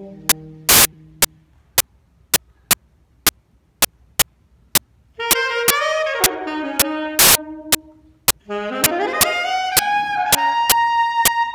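Solo saxophone playing slow blues phrases: a quiet gap, a phrase beginning about five seconds in, then a rising glide up to a held high note near the end. Under it a sharp click repeats about twice a second, with two louder hits about a second in and about seven seconds in.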